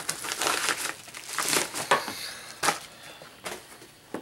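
Packaging being handled and crinkled: rustling and crumpling, densest in the first two seconds, followed by a few sharp clicks or taps as the box is worked on.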